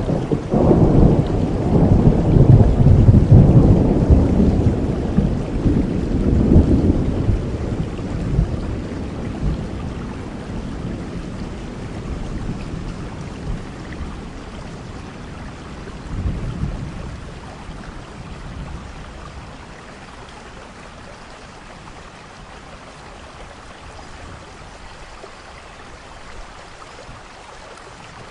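Steady rain with a long roll of thunder that swells about a second in, peaks a few seconds later and slowly dies away. A softer rumble of thunder comes about halfway through, and the rain hiss carries on quieter afterwards.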